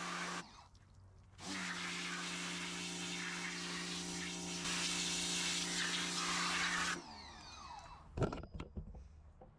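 Power tool, most likely an impact gun used on the engine's bolts, running with a steady whine and hiss. It runs briefly, stops for about a second, then runs again for about five and a half seconds before winding down with a falling pitch. A few sharp metal clinks follow near the end.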